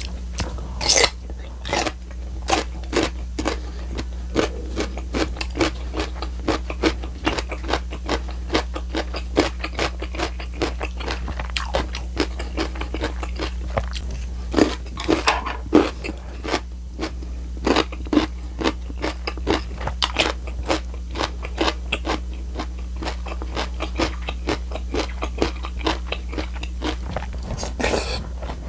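A person chewing crunchy kimchi, a dense run of crisp crunches several times a second with occasional louder bites.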